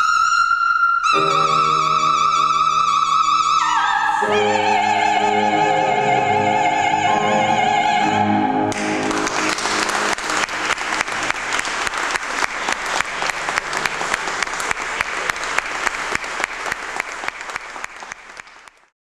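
Soprano holding a high final note with vibrato, grand piano chords coming in about a second in, then a lower held note over the piano's closing chords. Audience applause breaks out about nine seconds in and fades out just before the end.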